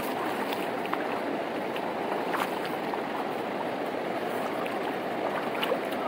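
Muddy, swollen river rushing over stones: a steady wash of flowing water.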